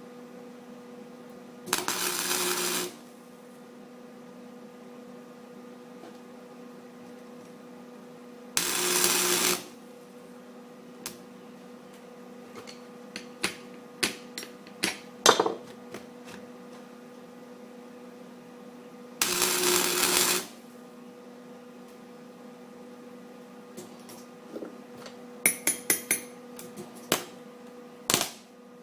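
Three short welding bursts, each about a second long, as weld is built up on the end of a bolt broken off in a cast iron exhaust manifold, over a steady hum. Scattered sharp clicks and taps fall between the bursts.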